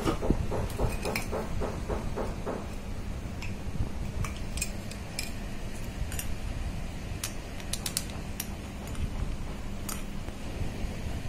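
A metal fork mashing and beating potatoes in a non-stick pot: soft, even strokes at about four a second for the first two or three seconds, then scattered sharp clinks of the fork against the pot.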